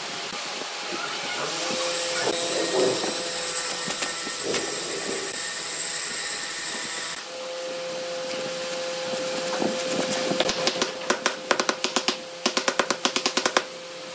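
Makita cordless impact driver tightening the screws of stainless hose clamps: a steady motor whine, then, from about ten seconds in, a rapid series of sharp hammering clicks as the impact mechanism engages against the tightening clamp.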